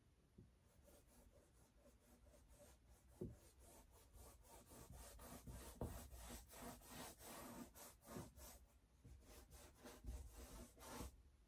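Paintbrush rubbing and scrubbing across a canvas in quick repeated strokes, getting denser and louder partway through and stopping abruptly near the end.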